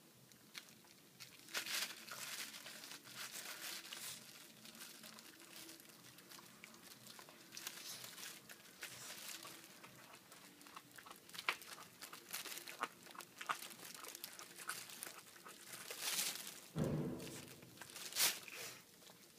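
Puppy tearing at and chewing a piece of raw meat on a plastic bag: the bag crinkles and rustles, with irregular wet biting and chewing clicks. There is a single dull bump about three quarters of the way through.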